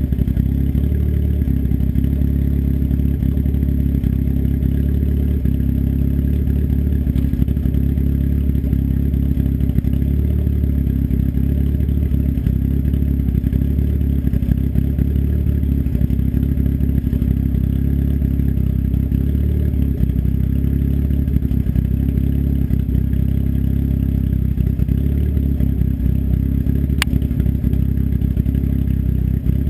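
Turbocharged engine with an S257 turbo and custom cams idling steadily through an open 3-inch turned-down dump off the downpipe, with no muffler: a loud, even, low rumble with no revving. A single light tick sounds near the end.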